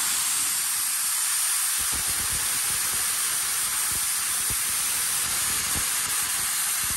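Compressed air rushing out of the 165-litre tank of an Iwata portable air compressor in a steady hiss, with the engine stopped: the tank still holds plenty of air.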